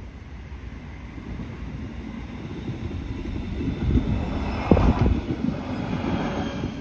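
A diesel railcar approaching and passing over a level crossing. Its engine and rolling noise build up, and a few sharp wheel knocks over the crossing come about five seconds in.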